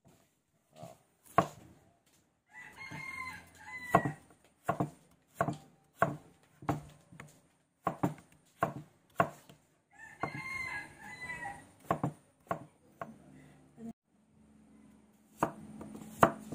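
Cleaver chopping liver, potato and carrot on a wooden chopping board: a run of sharp knocks, roughly one every half second to second. A rooster crows twice in the background, about three seconds in and again around ten seconds.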